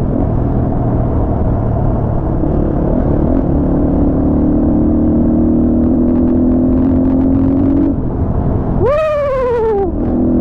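A 250 cc motorcycle engine runs steadily while the bike is ridden, heard from the rider's helmet mic over low wind noise. Near the end a loud tone rises, then falls in pitch, for about a second.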